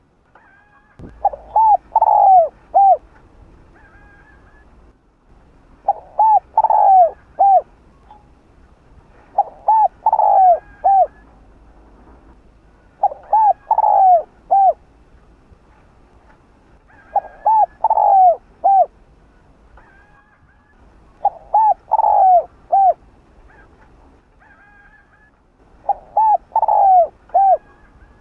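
Spotted dove cooing. Its short phrase of three or four coos is repeated seven times, about every four seconds.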